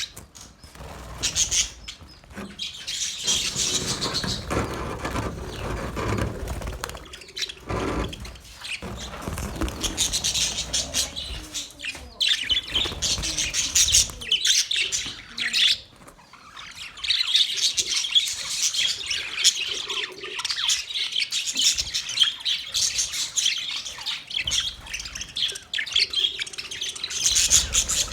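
Male budgerigars chirping and warbling in a continuous rapid chatter, with a few brief lulls.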